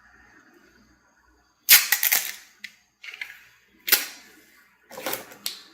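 Plastic parts and packaging being handled: sharp clicks, clatters and crackles in four bursts, the first and loudest a little under two seconds in.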